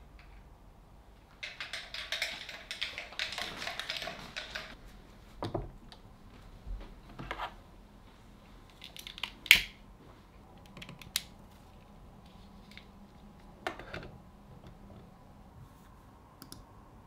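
Small objects being handled on a desk: a few seconds of rustling and clicking, then scattered single clicks and taps, the sharpest about nine and a half seconds in.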